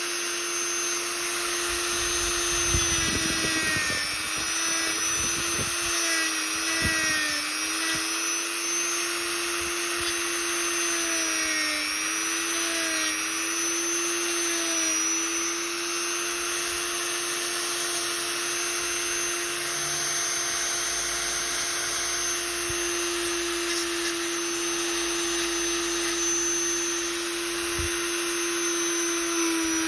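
Small handheld electric rotary tool (mini drill) running at high speed while grinding down the outer rim of a doll-joint repair piece. Its steady whine sags briefly in pitch several times as it bites into the piece.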